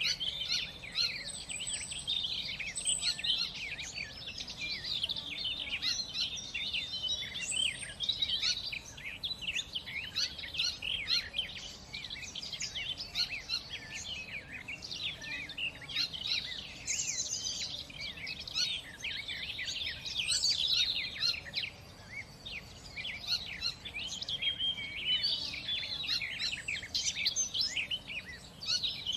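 A chorus of many songbirds chirping and singing at once, dense overlapping short calls and trills throughout.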